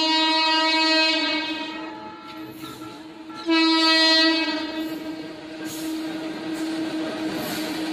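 Locomotive horn of an arriving freight train: a long blast that stops about a second in, a second shorter blast about three and a half seconds in, then the steady rumble of the train running in on the rails.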